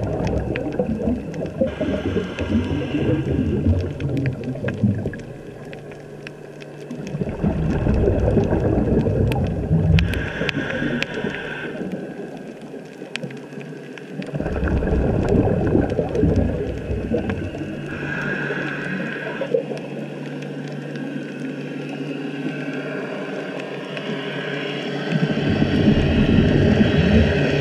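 A scuba diver breathing through a regulator underwater: exhaled bubbles rumble and gurgle in bursts every several seconds, with a hiss from the regulator between them.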